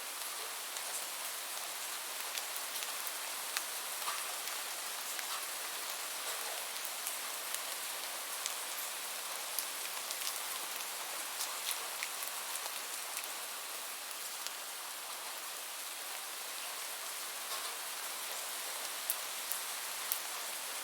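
Light rain falling steadily: an even hiss with many scattered, sharp ticks of single drops.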